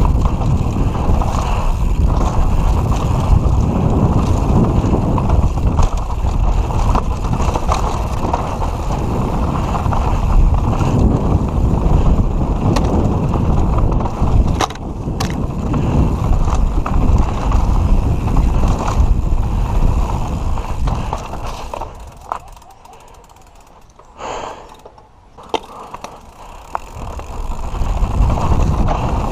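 Carbon downhill mountain bike (Santa Cruz V10 with Fox 40 fork) rattling down a rough dirt track: tyre noise on dirt with constant clattering and clicking from the chain and frame. It quietens for a few seconds about three quarters of the way through, then picks up again near the end.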